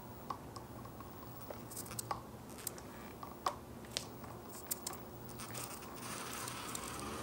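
An electric skateboard with a battery on its deck rolling slowly over a concrete floor, with scattered small clicks and crunches. The rolling hiss grows louder near the end.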